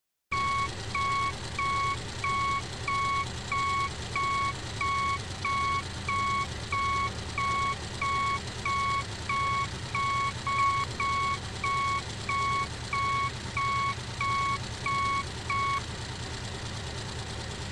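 Vehicle reversing alarm beeping at an even pace, about three beeps every two seconds, over a steady low engine hum. The beeping stops about sixteen seconds in and the hum carries on.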